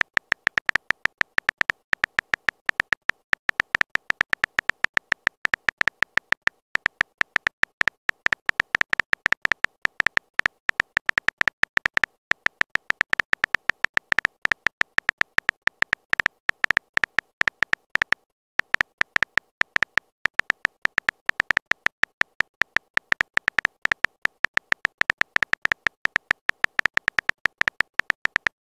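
Typing sound effect of a texting-story app: rapid, short, high clicks, several a second, as a message is typed out letter by letter, with a brief pause about 18 seconds in.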